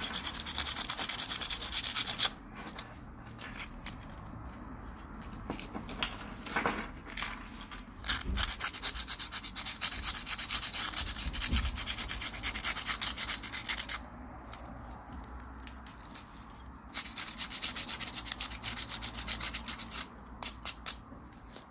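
Abrasive paper rubbed quickly back and forth over a metal watch bracelet's links, a dry rasping scratch in spells of rapid strokes that go softer for a few seconds twice.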